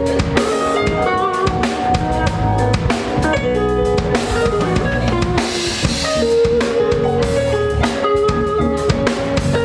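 Band music with a full drum kit keeping a steady beat, bass drum and rimshots, under guitar melody lines.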